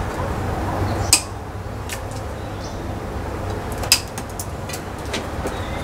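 A few sharp clicks and taps from hands working wires and small parts, the clearest about one second and four seconds in, over a steady low hum.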